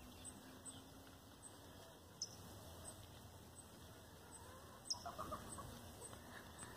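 Chickens clucking faintly, with a short run of clucks about five seconds in.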